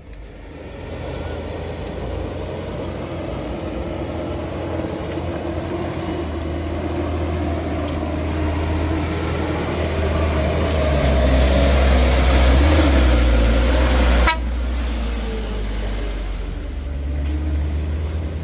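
Heavy diesel truck engine labouring under load up a steep climb, growing steadily louder, then dropping off abruptly about 14 seconds in.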